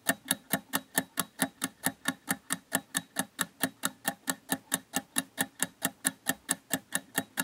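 Clock-like ticking sound effect, even and steady at about four ticks a second, timing the search round as a countdown.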